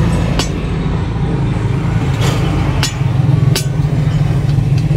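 A steady low motor hum, like an engine running nearby, with a few sharp knocks or clicks on top.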